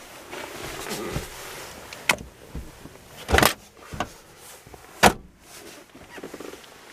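Car rear seat being handled: soft rustling of the seat, then several sharp clicks and knocks of its parts, the loudest about three and a half and five seconds in.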